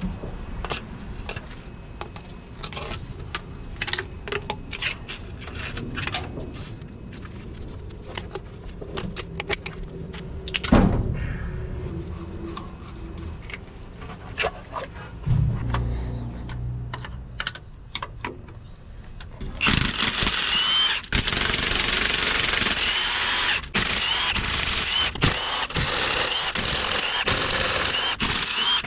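Metal hand tools clicking, tapping and knocking on a flathead six-cylinder engine as the seized distributor is worked loose, with a heavier knock about eleven seconds in. About twenty seconds in a louder steady hiss with short repeated chirps takes over.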